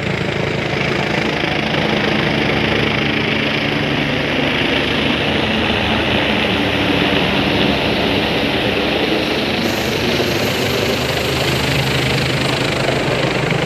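Helicopter flying low overhead, a loud, steady rotor and engine noise that does not let up.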